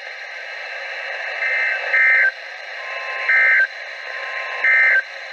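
NOAA Weather Radio end-of-message EAS data bursts: three short, shrill two-tone digital chirps a little over a second apart over steady radio hiss, signalling the end of the flash flood warning.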